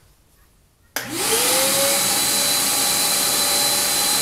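A shop vac on the band saw's dust port switches on about a second in, together with the Craftsman 10-inch band saw; a whine rises as the motors spin up, then settles into a steady rush of air. The vacuum is louder than the saw itself.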